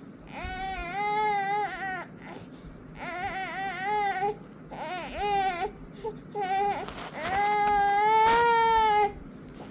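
Six-month-old baby making five drawn-out, wavering cry-like vocal sounds, more whining than babbling. The last is the longest and loudest.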